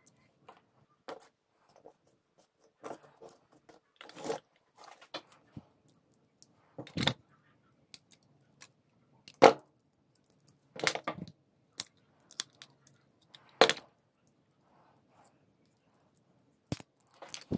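Small metal and plastic parts of a dismantled disposable vape being handled and gripped with pliers: irregular sharp clicks and light scrapes, the loudest about nine and a half and thirteen and a half seconds in.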